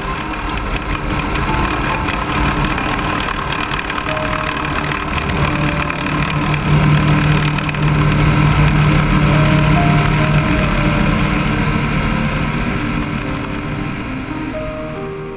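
Light aircraft's propeller engine running at takeoff power, with wind rushing past, through a takeoff roll on grass and lift-off. The engine grows louder over the first half and eases slightly near the end.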